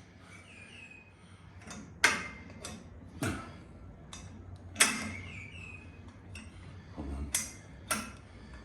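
Gym equipment being handled between sets: a handful of sharp metallic clanks and clicks at irregular intervals.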